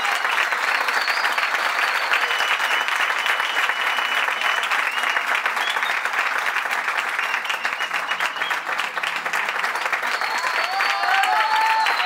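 Live audience applauding steadily, with voices calling out over the clapping near the end.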